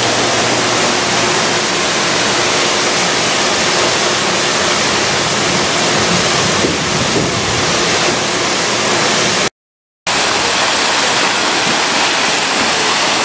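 Steady rushing of water pouring down the pool's stone waterfall features, a constant loud wash of noise that cuts out for a moment about ten seconds in.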